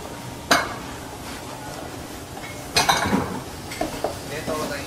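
Ceramic bowls clattering and clinking as a stack is handled and set down: one sharp clink about half a second in, then a louder cluster of clatters in the middle and a few lighter knocks after it, over steady kitchen background noise.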